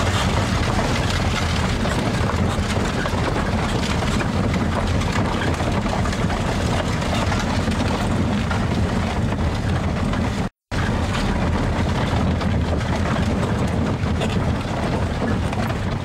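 Steady rumble and rattle of a horse-drawn carriage rolling along a dirt track behind a pair of horses. The sound cuts out completely for a moment about ten and a half seconds in.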